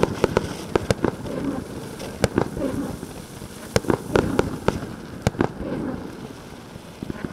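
Ground fireworks fountain burning, its exploding fish stars giving about a dozen sharp pops at uneven intervals over a steady rushing noise.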